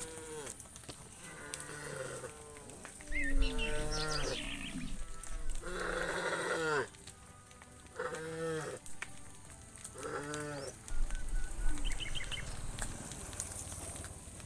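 Cattle mooing: about six drawn-out calls, one after another, through the first eleven seconds. A few short bird chirps follow near the end.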